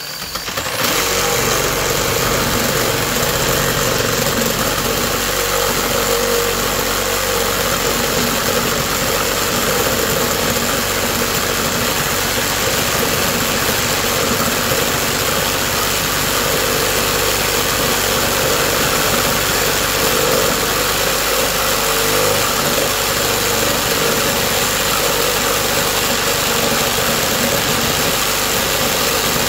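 A Kobalt 6-amp one-handed orbital reciprocating saw starts up about a second in, then runs steadily under load. Its bimetal blade saws through a dry 4x10 glulam beam in full orbit mode.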